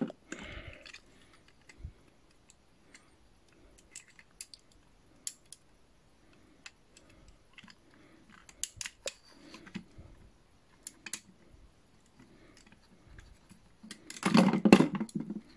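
Small plastic toy parts being handled and pressed together by hand: scattered light clicks and taps, with a louder, longer burst of noise near the end.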